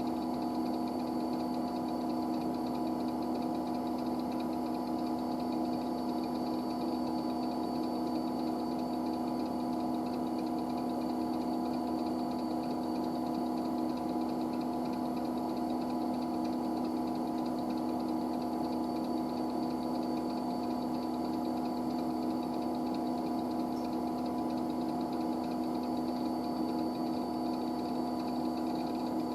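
IBM 9535 running, giving a steady hum with several fixed whining tones over a hiss, unchanging in pitch and level.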